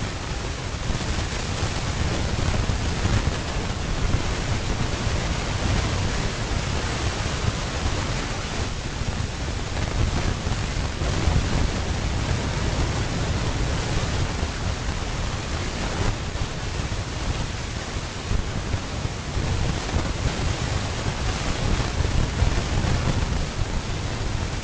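Steady rushing noise with an uneven low rumble underneath: wind buffeting an outdoor microphone.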